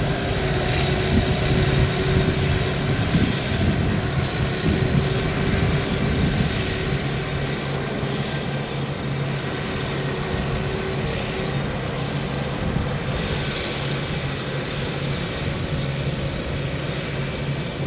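The Kubota 95 diesel engine of a tracked rotary tiller runs steadily under load as the machine tills wet paddy mud.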